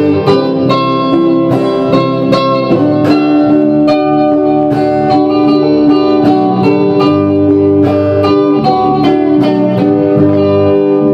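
Guitar-led music: plucked guitar notes, several a second, over held lower notes.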